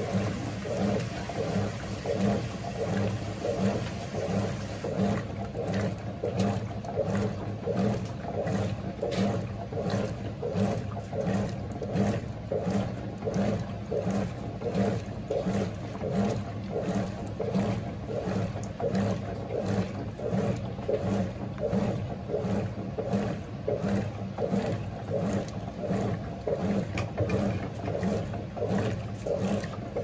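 GE Imagination 10 kg top-loading washing machine in the wash stage of its quick cycle, its motor driving the agitator back and forth in a steady rhythm. Low water sloshes and churns with each stroke, over a continuous motor hum.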